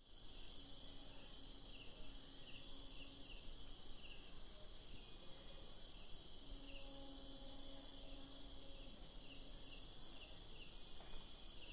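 Night insects, crickets among them, chirping and trilling in a steady high chorus with a regular pulsing chirp. A faint low hum comes in twice and fades.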